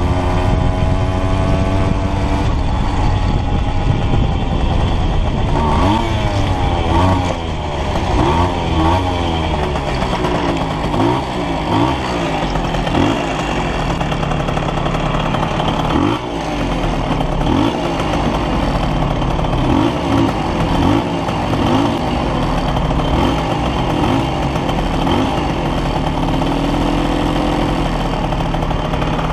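Simson S50 B2 moped's 50 cc single-cylinder two-stroke engine, its revs falling and rising in several sweeps as the bike slows down, then idling at a standstill from about halfway through with small blips of throttle.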